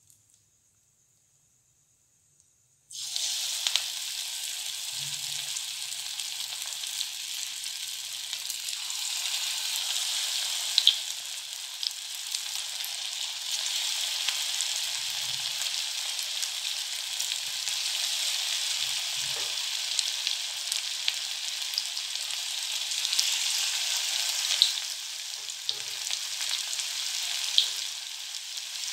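Suji (semolina) fritters deep-frying in hot oil in a kadhai: a steady, dense sizzle with occasional sharp pops. It starts suddenly about three seconds in.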